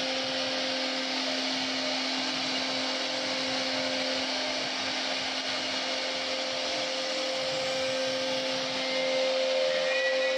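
CNC router spindle running with a steady whine while its bit carves wood, with a continuous hiss of cutting. It gets slightly louder near the end.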